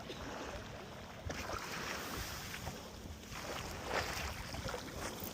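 Lake water sloshing and lapping with wind on the microphone. The sound swells louder a couple of times, about a second in and again near four seconds.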